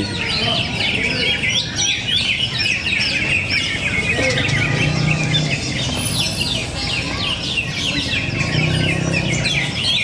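Many caged cucak ijo (green leafbirds) singing at once in a contest, a dense, unbroken chatter of overlapping chirps and quick whistled phrases.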